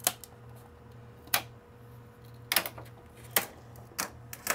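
Scattered sharp clicks and taps, about six in four seconds, from a screwdriver and a thin clear plastic cover being handled and lifted off a server's drive backplane, over a low steady hum.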